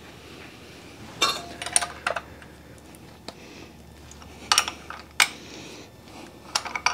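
Metal hand tools and hardware clinking and clattering as they are handled: a cluster of sharp clinks just after a second in, single clinks around four and a half and five seconds in, and another cluster near the end, over a faint steady hum.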